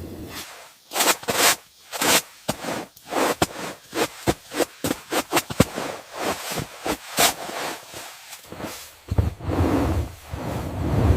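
A quick run of sharp, irregular knocks, about three a second, followed from about nine seconds in by a low rumbling noise.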